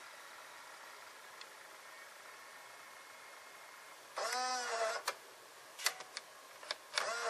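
Sony EV-C8u Video8 cassette deck's tape transport running quietly in play, then about four seconds in its motor whirs loudly as the tape unloads and the deck drops out of play by itself, a minor fault that ejecting and reinserting the cassette gets around. A few clicks follow as the eject button is pressed, and the motor whirs again near the end as the cassette begins to eject.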